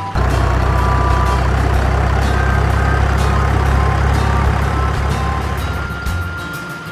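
Heavy truck engine sound effect: a steady low diesel rumble, with a few short high beeps over it.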